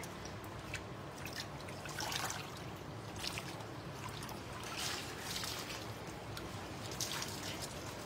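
Water trickling and dripping, with small irregular splashes, from a wet dyed shirt being lifted and handled over a dye bath.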